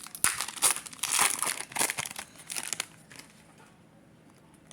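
Crinkling of Yu-Gi-Oh! trading-card pack wrappers handled in the hands, a run of quick rustles that dies away after about three seconds.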